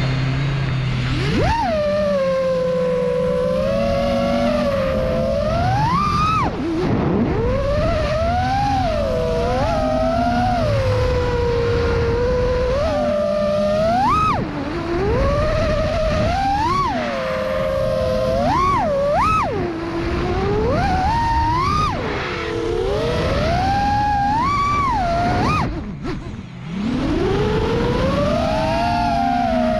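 Brushless motors and propellers of a 5-inch FPV freestyle quadcopter (ImpulseRC Apex on Silk v2 motors) whining, the pitch swooping up and down sharply with each throttle punch and dive. Near the end the whine drops away briefly and then climbs again.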